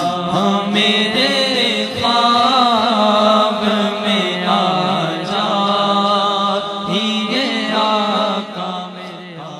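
Male naat reciter singing a long, ornamented melodic line into a microphone over a steady low drone. It fades down near the end.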